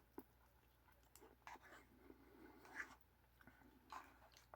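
Near silence, with a few faint, soft chewing sounds spread through it.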